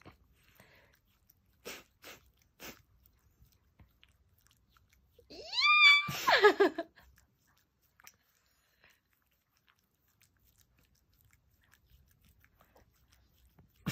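Small chihuahua licking a man's face: a few soft wet lapping clicks in the first few seconds. About five seconds in, a short high-pitched cry rises in pitch and is followed by a lower voice-like sound, the loudest part.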